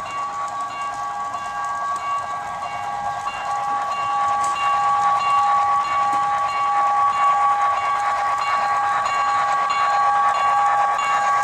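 Sound-equipped HO-scale model steam locomotive sounding a long, steady whistle from its onboard speaker, two notes held together and slowly growing louder, with a faint regular pulsing above them.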